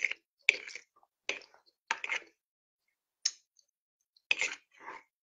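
A person eating tripe soup close to the microphone: about six short, soft eating noises, roughly a second apart.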